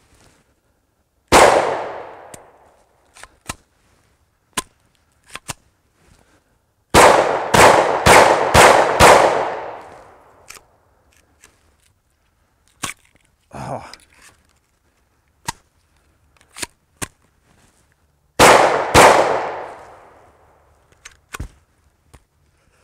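Caracal F 9mm pistol firing: one shot, then a quick string of five about half a second apart, then two more, each trailing off in echo. Small metallic clicks from the pistol fall in the pauses between the shots.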